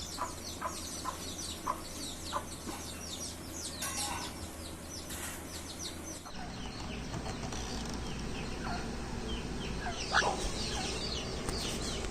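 Birds chirping and calling: many short, high chirps in quick succession, mixed with short, lower clucking notes.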